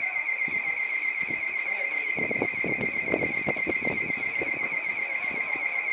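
A steady, high-pitched warbling tone, like an electronic alarm, with faint voices of people talking underneath for a couple of seconds in the middle.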